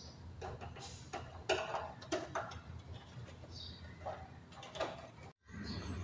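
Plastic parts of a split AC indoor unit being handled and pressed into place around the evaporator coil: scattered light clicks and knocks, with a brief cut-out near the end.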